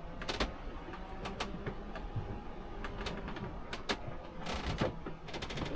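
Scattered sharp clicks and knocks from things moving about in a sailing yacht's cabin under way, over a low steady rumble, with a quick cluster of knocks about four and a half seconds in and again at the end.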